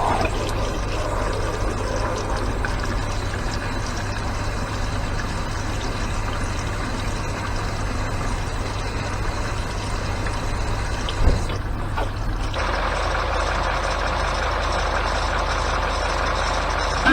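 Range Rover L322's 4.4 TDV8 diesel engine idling steadily, with a low hum that grows a little stronger about twelve seconds in.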